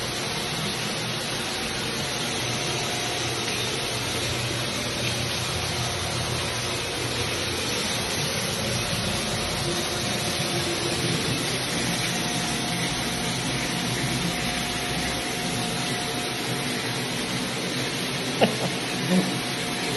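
Steady rushing of water flowing through a running water-purification system, with its pumps running. Two short knocks near the end.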